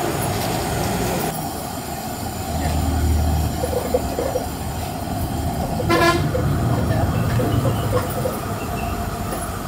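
A steady low rumble in the background, with one short horn toot about six seconds in.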